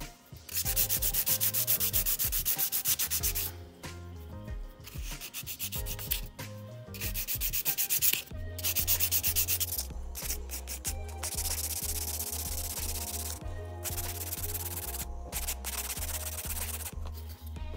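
Hand nail file rasping against a sculpted acrylic stiletto nail in rapid back-and-forth strokes, in runs broken by short pauses, as the cured nail's side is shaped.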